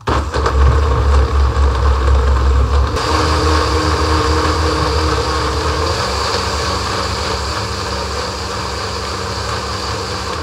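Countertop blender motor starting abruptly and running at full speed, chopping orange pieces and nopal cactus in water into a green juice. About three seconds in the sound turns smoother and brighter as the chunks break down into liquid, then runs steady.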